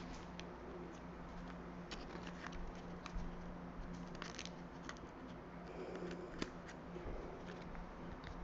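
Faint, scattered light clicks and handling noises from hands moving small objects at a table, over a low steady hum.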